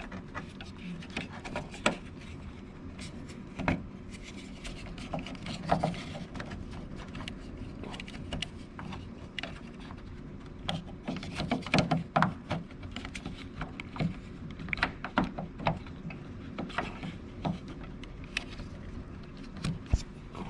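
Irregular clicks, taps and light scraping of metal and plastic parts handled inside a car door as the outside handle's linkage rod is worked back into place, busiest in a flurry about halfway through.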